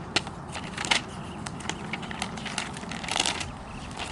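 Textbook pages being turned and loose papers rustled: a run of short crackling flicks, with a louder rustle about three seconds in.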